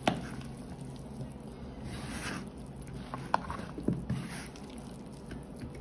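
Faint, soft squishing of hands rubbing spice masala into small bombil (Bombay duck) fish, with a few light clicks.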